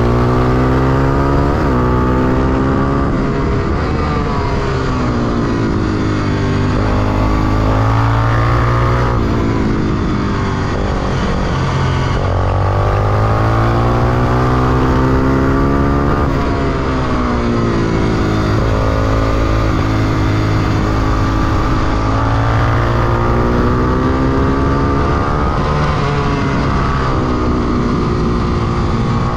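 Honda XR250 Tornado's air-cooled 250 cc single-cylinder four-stroke engine under hard riding on track. The engine note climbs repeatedly and drops back again and again as the bike accelerates out of corners and shifts or rolls off, over steady wind rush.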